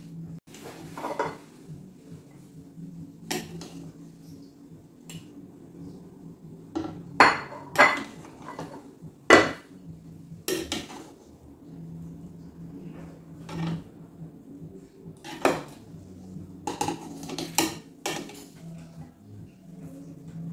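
Stainless-steel slotted serving spoon clinking and scraping against a cooking pot and ceramic plates as rice is scooped and served. The clinks come at irregular intervals, with the loudest few about 7 to 10 seconds in.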